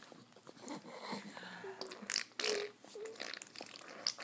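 Five-month-old baby making noises: a few short pitched coos and spluttery, breathy bursts from the mouth.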